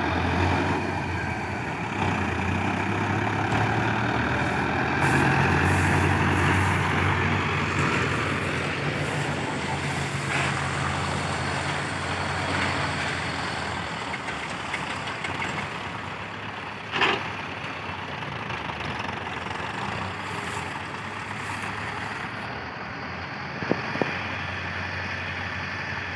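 Heavy diesel engine running, pulling harder from about five seconds in for several seconds and then easing back. A single sharp knock sounds about two-thirds of the way through.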